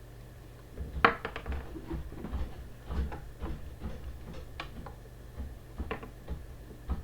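Irregular light clicks and clatter of small tools and parts being handled on a workbench, with one sharper knock about a second in, over a steady low mains hum.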